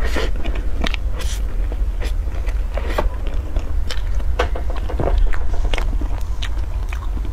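Close-miked eating of a whipped-cream chocolate cake: irregular soft smacks and clicks of mouth and lips, and a metal spoon scraping into the cake, over a steady low hum.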